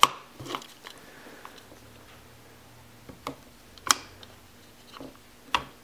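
A handful of short clicks and light knocks, the sharpest about four seconds in: spring-loaded jump-starter cable clamps being unclipped and clipped back onto a small battery's terminals.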